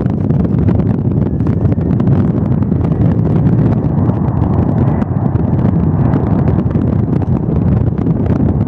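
Boeing 717's two rear-mounted Rolls-Royce BR715 turbofan engines at takeoff power, a loud steady rumble, with wind buffeting the microphone.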